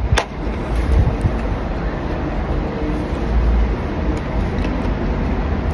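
Steady outdoor background noise with a low rumble that swells and fades, and one sharp click just after the start.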